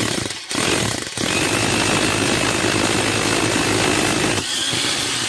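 Hammer drill boring into a concrete block wall with a masonry bit: a really loud, high-pitched hammering grind. It falters twice in the first second, then runs steady and eases a little near the end.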